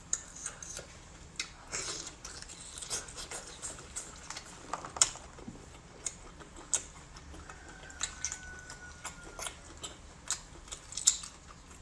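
A person chewing and eating seafood, with irregular mouth clicks and smacks.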